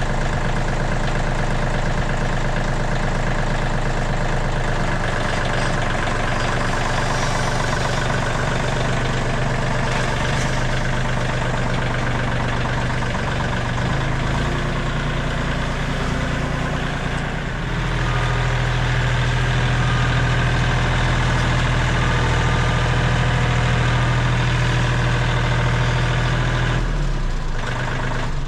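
An engine runs steadily, its note shifting a few times and growing louder about two-thirds of the way through, then shuts off at the very end.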